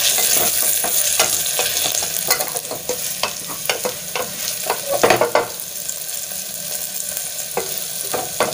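Sliced onions and green chillies sizzling in hot oil and ghee in a pressure cooker, stirred with a spatula that scrapes and knocks against the pot's base and sides at irregular intervals, with the loudest scrapes about halfway through. The onions are frying until soft.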